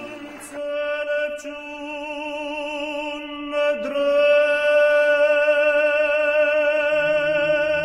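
Slow chant: a voice holding long, wavering notes, with a brief break and a slide up into a new note about halfway through. A second, lower held note joins near the end.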